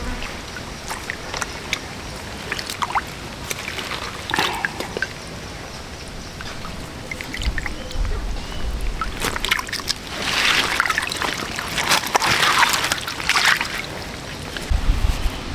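Water sloshing and trickling, with scattered drips and small splashes; the sloshing swells louder from about ten to fourteen seconds in.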